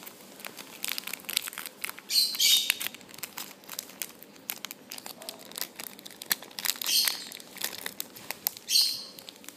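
Crinkly packaging being handled by hand: a steady run of small crackles, with louder crinkles about two, seven and nine seconds in.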